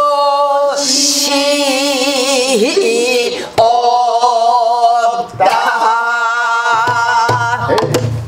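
A woman singing pansori in a strained, full-throated voice, holding long notes with wide vibrato. She accompanies herself on a buk barrel drum, with a few stick strokes on the drum near the end.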